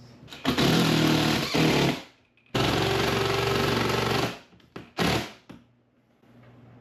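Power impact driver driving screws into wood, in three runs: two of about a second and a half each and a short burst near the end.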